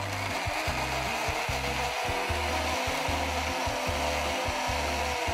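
Electric mixer-grinder running steadily at speed, blending a thin mix of mango pulp, yogurt, ice and water into lassi.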